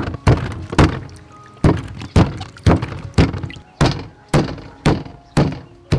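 Stone pestle pounding herb paste in a heavy stone mortar: dull, heavy thuds about twice a second in an uneven hand rhythm.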